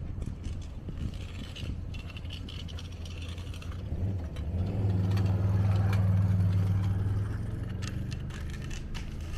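A motor vehicle passing close by: a low engine hum swells from about halfway through, peaks and fades again, over a steady low rumble.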